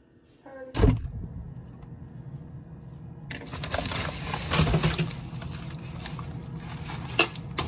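A knock, then crinkling plastic and bumping as food packages, a plastic bag of eggs among them, are handled and taken out of a refrigerator, with several small clicks near the end.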